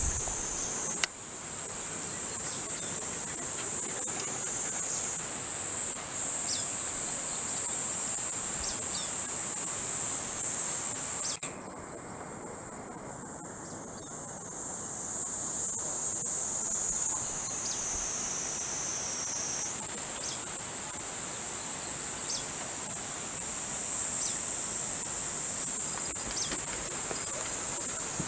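A chorus of insects, typical of summer cicadas, buzzing steadily in a high band. A sharp click or knock comes about a second in and another around the middle.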